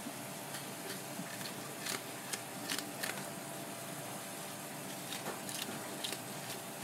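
Perforated metal fish scaler scraping the large scales off a whole fish, giving irregular short scratches and clicks as the scales come away, over a steady background hiss.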